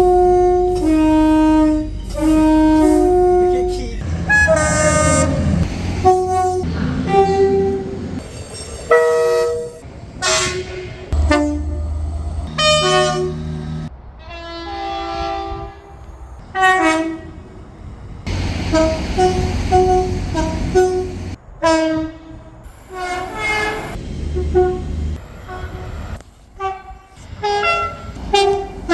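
A rapid series of British train horn blasts from different trains, cut one after another. It opens with a two-tone horn alternating high and low notes four times, then runs through many shorter toots and two-note calls of varying pitch, with a low rumble under several of them.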